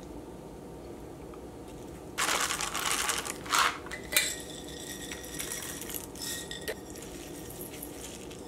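A metal screw lid twisted off a glass mason jar about two seconds in, a few sharp clinks of jar and lid, then seeds shaken out of the glass jar onto a bowl of lettuce with light rattling and clinking.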